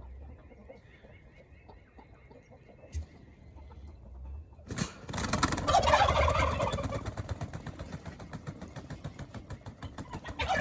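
Farm poultry calling, faint at first; about five seconds in a louder stretch of calls and rustling noise sets in.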